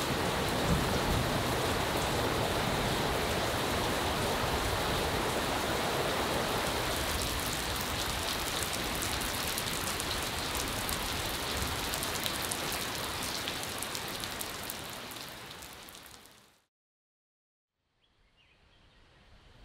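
Heavy rain falling steadily onto a waterlogged yard, a dense hiss with fine drop patter. It fades out over the last few seconds to silence, and a faint background sound returns near the end.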